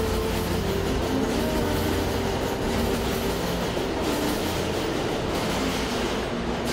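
Subway train running past close by in a tunnel, a steady rumble and rattle of wheels on rail with a wavering whine over it.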